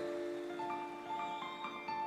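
Live rock-concert keyboard music: held synthesizer chords under a slow line of single high notes that change every few tenths of a second.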